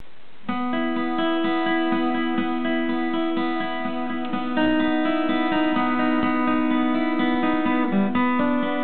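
Marina Mark 34 steel-string acoustic guitar being played, chords picked out note by note in a steady rhythm of about four notes a second. It starts about half a second in and changes chord about halfway and again near the end.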